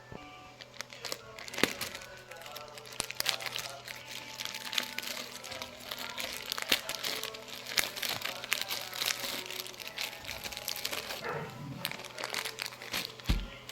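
Plastic packaging crinkling and rustling as a product box is unwrapped and handled, with scattered small clicks and taps.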